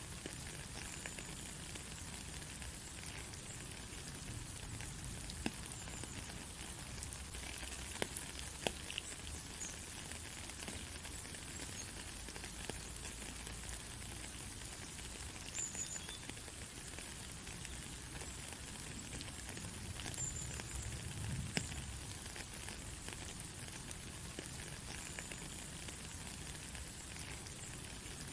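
Steady rain falling on a country road: an even hiss with scattered sharp drop ticks, a few louder ones about eight seconds in.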